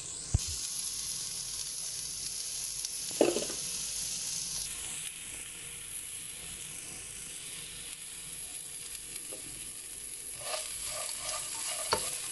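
Chopped onion, peanuts and chana dal frying in hot oil in a nonstick kadai, a steady sizzle as the onion is sautéd with a little salt to dry it out. A few sharp knocks of the stirring spoon on the pan, the loudest about three seconds in, and scraping near the end.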